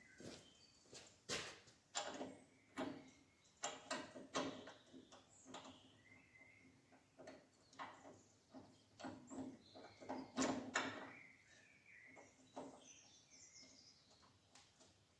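Irregular light clicks and knocks of hand tools and metal parts being handled, with a louder knock about ten seconds in. Faint bird chirps are heard behind them.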